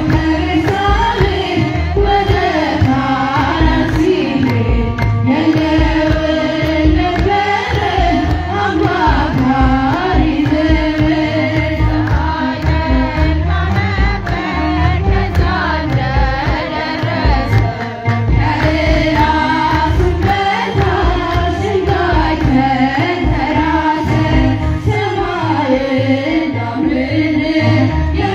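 A woman singing an Ethiopian Orthodox mezmur (hymn) in Amharic into a microphone, with a kebero drum beating a steady rhythm beneath the melody.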